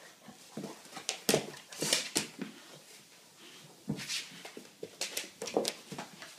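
American bulldog at play, making a string of short, irregular noises as it tugs and mouths a blanket and cloth toy; the loudest come about a second and two seconds in, with more after about four seconds.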